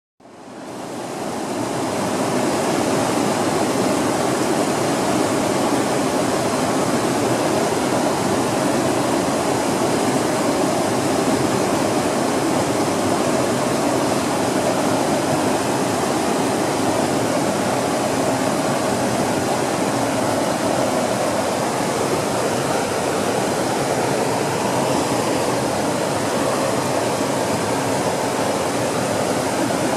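Creek water rushing steadily over rock ledges and around boulders in small white-water cascades. The sound fades in over the first two seconds.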